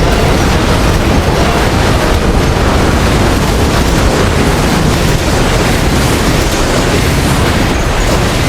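A homemade imitation of Godzilla's atomic breath sound effect: a loud, steady blast of noise that fills the deep and the high end at once and holds without a break.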